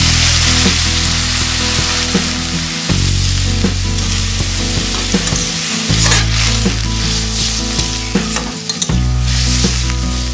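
Water poured into hot ghee and fried rice in a metal karai sizzling hard, hissing loudest at first and flaring again about six seconds in, while a steel ladle stirs and scrapes against the pan.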